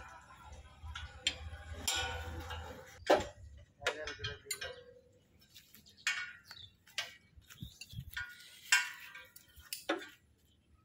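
Scattered metallic clinks and taps of hand tools and parts being handled on an opened diesel tractor engine, sharp single knocks one to two seconds apart.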